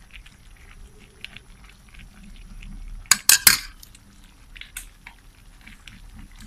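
Metal ladle clinking against a metal cooking pan while stirring a pork stew: light scrapes and ticks, then three sharp clinks a little after three seconds in, as the ladle is knocked against the pan and set down.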